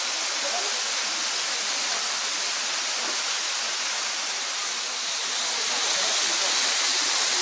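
Small waterfall's water rushing steadily, getting louder about two-thirds of the way in.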